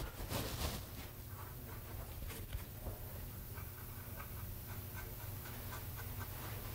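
Faint, light scratching and ticking of a small paintbrush working wet clay around a glass eye, over a low steady hum.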